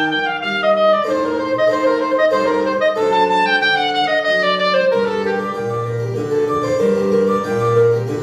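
Soprano saxophone playing a classical solo line, with two falling runs, over a keyboard accompaniment that holds low notes underneath.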